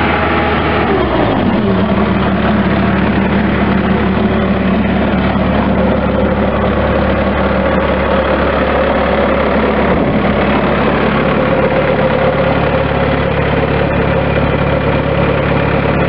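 2005 Bobcat S185 skid steer loader's four-cylinder diesel engine winding down from raised throttle about a second in, its pitch falling, then idling steadily.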